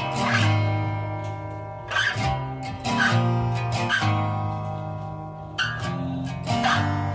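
Instrumental music without vocals: guitar chords struck about once a second over a steady low bass.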